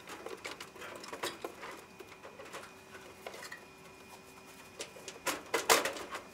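Scattered light clicks, knocks and rattles of a Maytag dryer's front bulkhead being worked loose from the cabinet, with a louder cluster of knocks about five seconds in.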